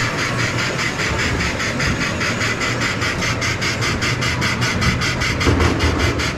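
Coin-operated kiddie train ride running along its track: a steady low rumble from the motor and wheels, with a fast, even clatter.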